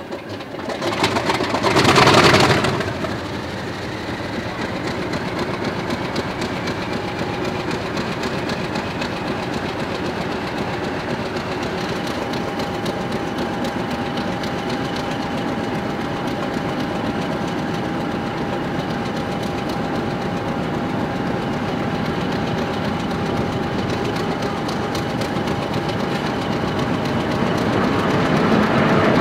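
Class 50 diesel locomotive's English Electric engine running with a steady drone and a turbocharger whine that rises slowly in pitch, after a brief loud blast about two seconds in. Near the end a shunting locomotive comes by and its wheels clatter over the track, growing louder.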